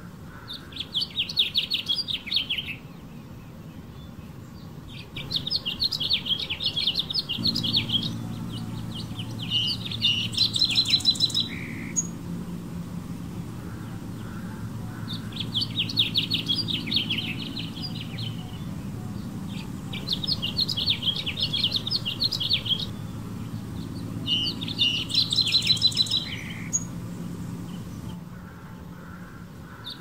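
Male house finch singing: six bouts of about two seconds each of rapid, jumbled high notes, with short pauses between them. This is the male's song to attract females. A low droning hum comes in after about seven seconds and runs beneath the song.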